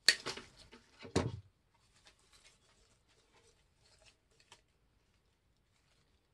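Artificial daisy stems being handled and worked into a poly burlap mesh wreath. There are two sharp clicks, the second about a second after the first, then light crackly rustling of the plastic flowers and mesh that fades out a few seconds in.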